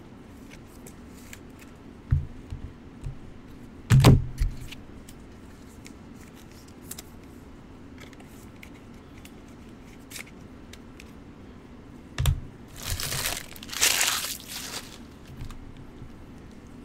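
Trading cards and packs being handled on a table: a few sharp knocks, the loudest about four seconds in, then near the end a card pack's wrapper crinkling and tearing open for about two seconds.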